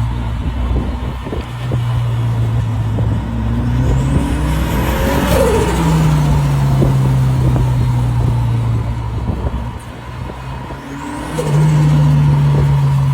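Honda S2000's four-cylinder engine running at a steady, held speed. About five seconds in, a car passes close, its pitch rising and then falling. Near the end the engine note steps up and gets louder after another brief rise and fall.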